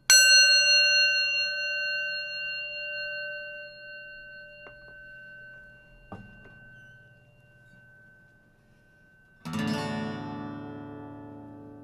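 Instrumental opening of a song. A single bright note is struck and rings slowly away over several seconds. About nine and a half seconds in, a fuller, lower chord is struck and rings on.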